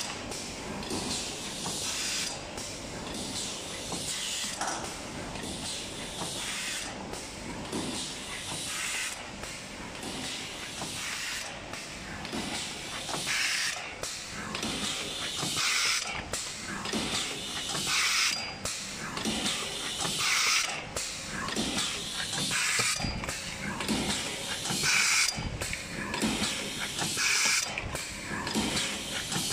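DS-M2 paper plate machine running while forming boat-shaped trays, a mechanical clatter with bursts of air hiss that come round about every two seconds.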